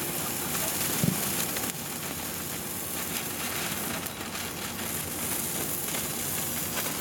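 Three TNT Morning Glory sparklers burning together with a steady fizzing hiss and crackle. A short thump comes about a second in.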